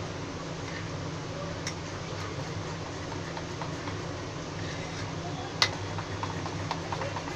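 Fingers stirring and squeezing a thin maida, cornflour and rice-flour batter in a ceramic bowl to work out the lumps, with a few faint ticks and one sharp click against the bowl about five and a half seconds in, over a steady low hum.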